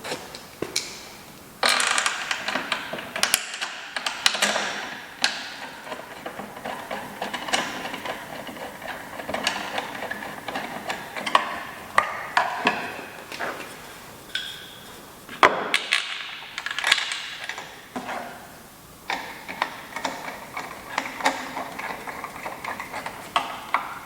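Irregular knocks, taps and scraping of wooden parts being handled and worked at a woodworking bench.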